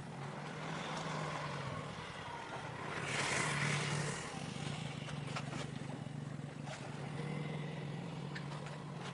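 Steady low engine drone from ships' engines heard across the harbour water, with a louder rush of noise about three seconds in.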